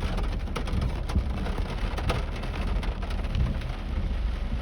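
Heavy rain on a moving vehicle: a steady patter with a low rumble underneath and scattered sharper drop hits.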